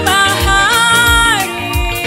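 Swahili gospel song by a church choir: voices singing a long held note over a band with a steady drum and bass beat.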